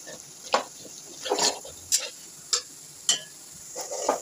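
Flat metal spatula scraping and knocking against a kadhai as mashed potato is stirred and fried in ghee: about six strokes a little over half a second apart, over a faint sizzle of the hot ghee.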